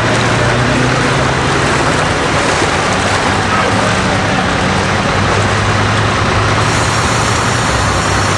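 Fire engine's engine running steadily close by: a loud, constant drone with a low hum underneath.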